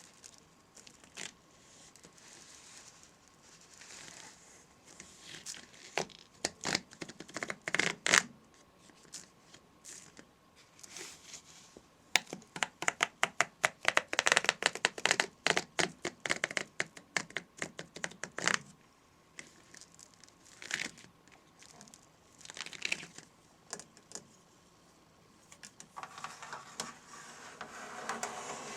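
Crinkling and crackling of something being handled, in irregular bursts of rapid sharp crackles, densest for several seconds around the middle.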